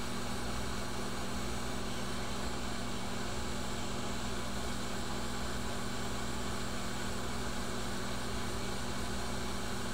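Steady airflow hiss of a Quick 861 hot air rework station blowing on a circuit-board chip to melt its solder for removal, over a low steady hum.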